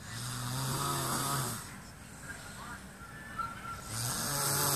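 A sleeper snoring: two long snores about four seconds apart, each a low buzzing tone under a breathy hiss, the second starting near the end.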